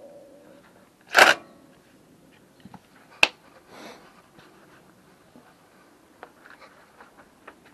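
Hands working at the motorcycle with tools and parts: a short, loud scraping rustle about a second in, one sharp click a couple of seconds later, then faint scattered clicks and rustles.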